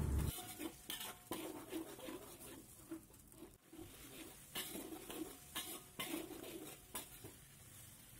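Metal spatula scraping and clinking against an aluminium wok in irregular strokes, stir-frying a blended spice paste in oil.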